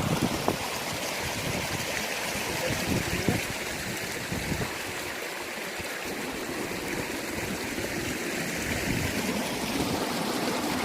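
Steady rushing noise with uneven low rumbles underneath.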